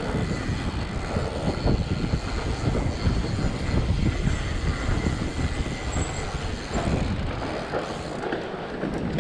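Fat bike riding over packed snow on a singletrack, heard through a handlebar-mounted camera: a continuous low rumble from the wide tyres and frame, with many small irregular knocks and rattles from the bumps.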